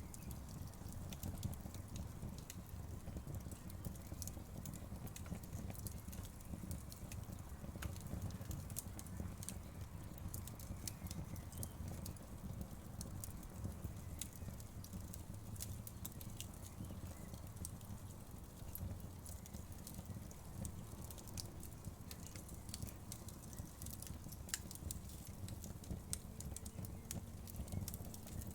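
Wood fire crackling: frequent sharp, irregular pops and crackles over a steady low rumble.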